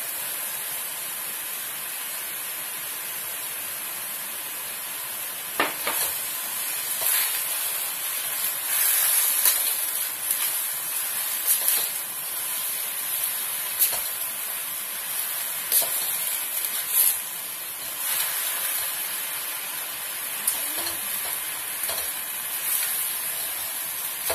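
Vegetables, mushrooms and bean curd sizzling in a hot wok with a steady hiss. A spatula stirs and tosses them, knocking and scraping against the wok at irregular moments from about six seconds in.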